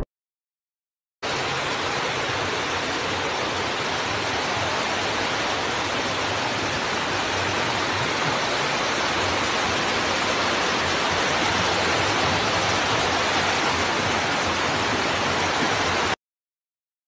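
Floodwater pouring down a flight of stairs into an underground passage: the steady rushing of a torrent. It starts suddenly about a second in and cuts off just before the end.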